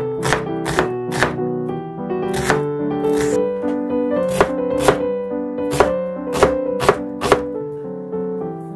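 Chef's knife chopping an onion on a wooden cutting board: sharp knocks of the blade on the board, about a dozen at an uneven pace, some in quick runs and with a pause of over a second near the start. Background piano music plays underneath.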